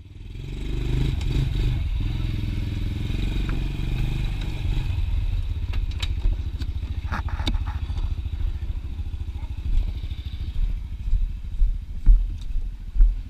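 Honda TRX90 ATV's small single-cylinder four-stroke engine running with a steady low pulse while still warming up from cold, with a few light clicks and knocks around it.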